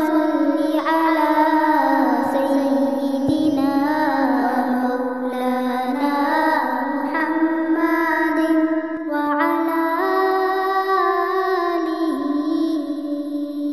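Background music: a melodic tune of held notes that glide from one pitch to the next.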